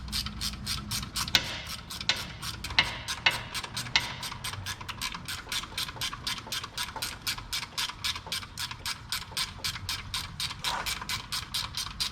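Hand ratchet clicking steadily, about four clicks a second, as a starter mounting bolt is run in by hand, with a few louder knocks in the first few seconds.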